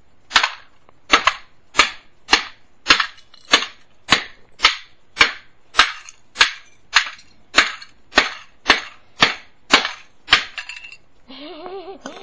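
Plastic VHS cassette being struck over and over with hard, sharp cracking blows, about two a second and some eighteen in all, as it is smashed apart.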